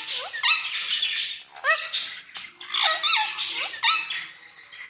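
Ringneck parakeet squawking: about four short, harsh calls, each with a quick rise and fall in pitch.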